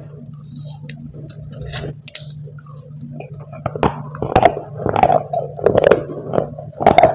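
Dry white clay chunks clicking and rustling in a plastic tub as a hand picks through them, then a quick run of loud, crisp crunches as pieces of clay are bitten and chewed, starting about three and a half seconds in.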